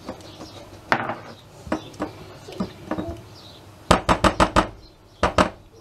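Silicone spatula working grated onion around a stainless steel pot, knocking against the metal, with scattered knocks and then a quick run of about six sharp taps followed by two more near the end.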